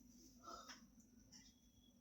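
Near silence: room tone with one faint short sound about half a second in.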